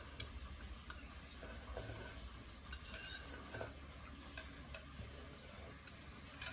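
Faint scattered clicks and small knocks from someone drinking soup straight from a bowl, over a low steady hum.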